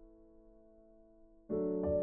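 Background piano music: a soft held chord dies away, then a louder new chord is struck about one and a half seconds in, with another note added just after.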